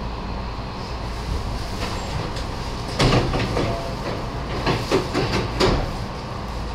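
Nose Electric Railway 7200-series electric train running with a steady rumble. Its wheels clatter over the track: one loud clatter about three seconds in, then a quick run of about four more near the five-second mark.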